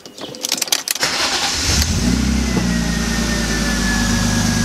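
BMW E36 engine being started with the key: a few sharp clicks in the first second, a brief crank of the starter, then the engine catches about two seconds in and settles into a steady idle.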